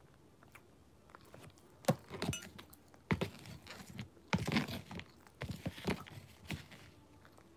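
Metal spoon scraping and clinking against a plastic container as it digs into and breaks up chunks of dry cornstarch. The sound comes in several short scraping, clicking bursts between about two and six and a half seconds in.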